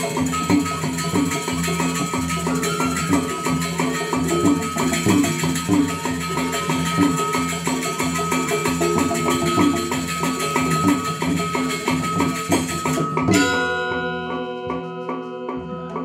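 Balinese gamelan orchestra playing: bronze metallophones and drum in a fast, dense passage with a bright shimmer on top. About thirteen seconds in the shimmer stops abruptly and the music turns sparser and slightly quieter, with long ringing metallophone tones.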